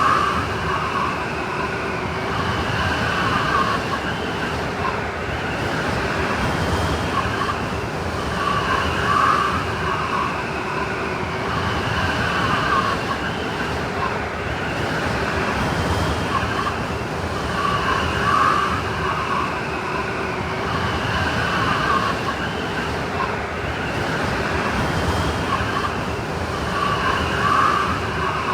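Snowstorm wind: a steady rush of blowing wind with wavering, siren-like howling tones. The same gusting pattern repeats about every nine seconds, as in a looped recording.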